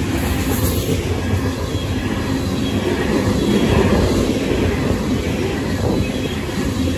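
Freight train's covered hopper and tank cars rolling past close by, a steady, loud rumble of steel wheels on rail.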